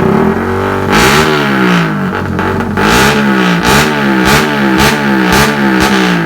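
Suzuki Raider 150 Fi's single-cylinder four-stroke engine through a Vmax conical aftermarket muffler, revved in a run of quick throttle blips, each rising and falling in pitch, before dropping back toward idle near the end.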